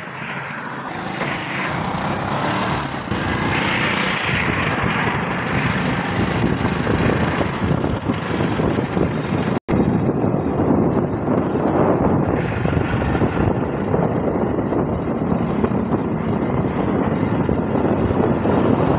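Steady engine and wind noise from riding in a moving road vehicle. The sound cuts out for an instant about ten seconds in.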